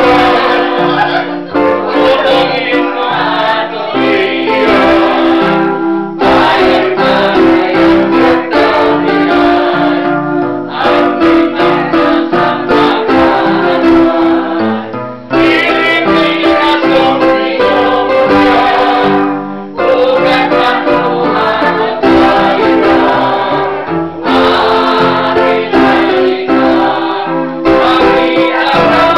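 Small choir of mostly women singing a song together, accompanied by an electronic keyboard, with short breaks between phrases.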